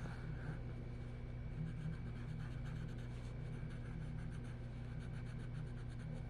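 Coloured pencil scratching on paper in many short back-and-forth strokes while colouring in, over a steady low electrical hum.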